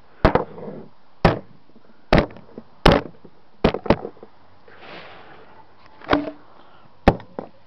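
Repeated hard blows smashing an old LG mobile phone, about eight sharp strikes at an uneven pace, two of them close together near the middle. A soft scraping rustle comes between the strikes about five seconds in.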